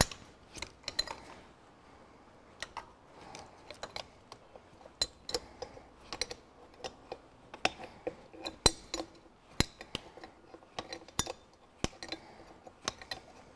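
A spanner clicking and clinking against a bolt and housing as it is worked loose: a string of short, sharp metal clicks at irregular spacing, a few every second.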